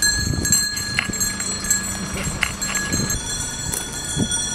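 Bells on a grazing flock of sheep clinking and ringing, several steady high tones overlapping, with a few dull thumps underneath.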